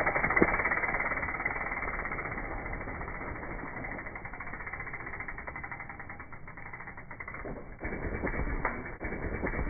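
Mountain bike freehub ratchet buzzing as the bike coasts, a rapid dense clicking. From about eight seconds in the tyres scrub through dirt and leaves as the bike carves the berm, and the sound grows louder.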